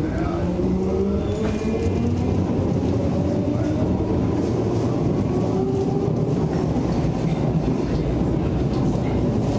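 Interior running noise of a Hamburg S-Bahn class 472/473 electric train: a steady rumble of wheels on the rails, with a motor whine that rises in pitch over the first second or two as the train picks up speed, then holds.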